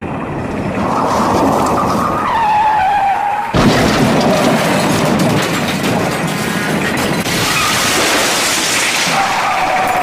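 Car sound effect: a steady rushing vehicle noise with a wavering, squeal-like whine. About three and a half seconds in it jumps suddenly louder, and the whine comes back near the end.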